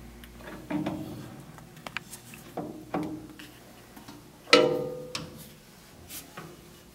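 A steel sine vise being handled and set down into a milling machine vise: several metal knocks and clunks, then one loud ringing clank of steel on steel about four and a half seconds in.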